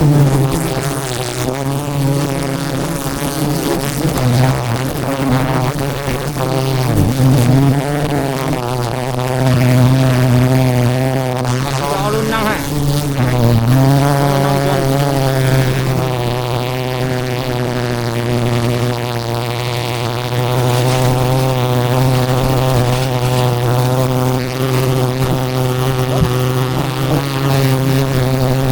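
Swarm of wild honeybees buzzing in a steady drone, which dips briefly in pitch a couple of times.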